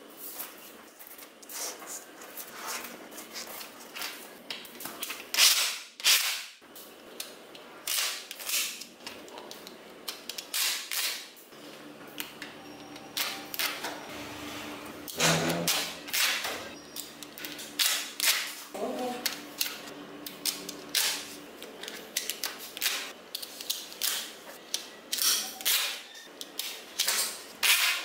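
Small magnetic balls clicking sharply together at irregular intervals as strings of balls are snapped and pressed into rows of a flat sheet.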